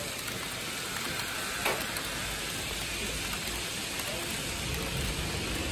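TOMIX N gauge 117 series model train running on the layout track, its small wheels and motor giving a steady rolling rattle, with one faint click a little under two seconds in.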